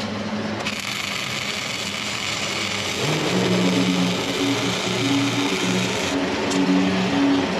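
Wire-feed welder arc crackling as a bead is laid on the steel hitch of a riding mower; it starts about half a second in and cuts off about six seconds in. Under it, from about three seconds in, a low hum changes pitch in steps.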